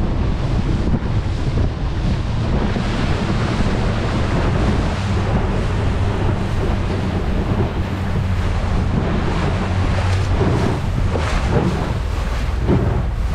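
Wind buffeting the microphone over the steady hum of a motorboat's engine and water rushing past the hull, a loud, unbroken rumble.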